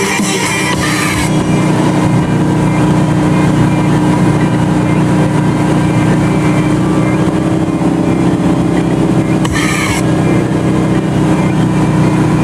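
Motorboat engine running steadily under way while towing a wakeboarder, over the rush of wake water and spray; its pitch climbs slightly in the second half. A brief sharper sound about ten seconds in.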